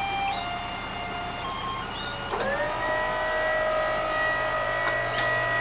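Electric motor starting about two seconds in, its whine rising briefly and then holding steady.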